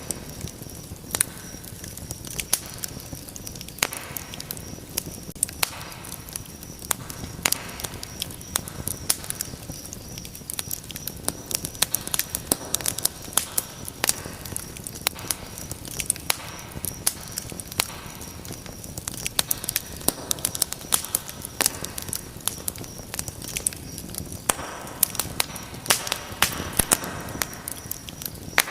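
Wood fire crackling in a fireplace: frequent irregular sharp pops and snaps over a steady low rush of burning flames.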